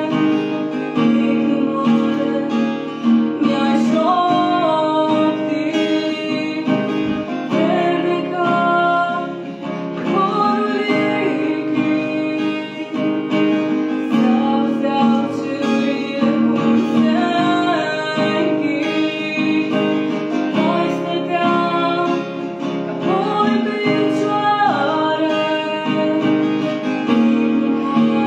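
A young woman singing a folk song while strumming a cutaway acoustic guitar in a steady rhythm.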